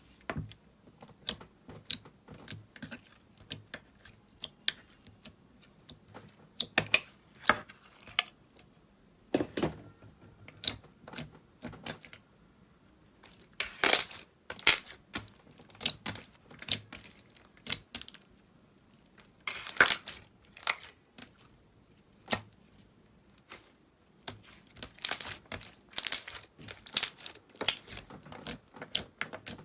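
Slime being squeezed and pressed by hand, giving irregular sticky pops, clicks and crackles, with a few louder clusters.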